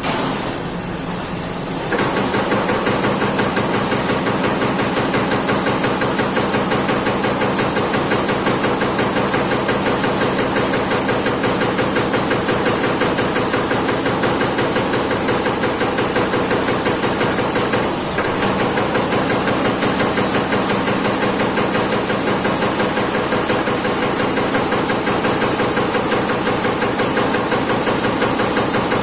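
Amada Pega 357 CNC turret punch press punching sheet metal in a rapid, even series of strikes, over the steady hiss of the machine. The strikes start about two seconds in and pause briefly once past the middle.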